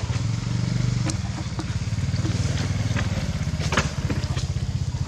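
An engine running steadily with a fast, low, even throb, with a few short sharp clicks over it, the loudest nearly four seconds in.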